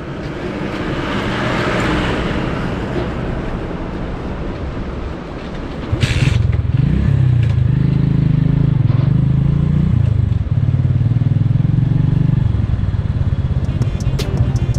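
A motorcycle engine starts about six seconds in with a sharp clack, revs briefly and then runs steadily. Before that a rushing noise swells and fades.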